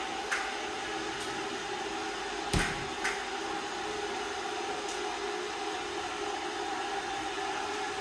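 Steady hum and hiss of a kettle heating toward the boil, with a sharp knock about two and a half seconds in and a few lighter clicks.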